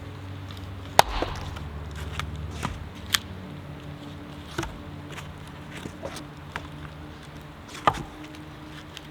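Sharp, irregular knocks of wood being struck, about half a dozen, the loudest about a second in and near the end, over a steady low hum.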